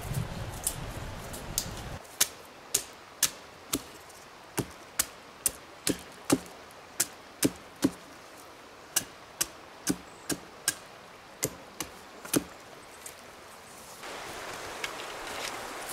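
Hatchet chopping a branch laid across a log: a run of sharp chops about two a second, starting about two seconds in and stopping a couple of seconds before the end.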